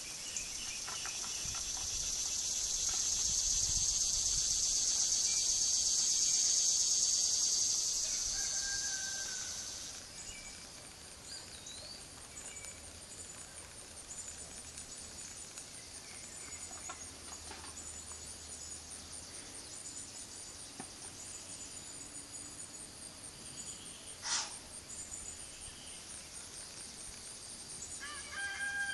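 Woodland insects and birds. A loud, high-pitched insect drone swells and then fades over the first ten seconds or so. After that a fast, steady, high pulsing continues, with scattered bird chirps, a brief sharp sound about 24 seconds in, and a flurry of chirps near the end.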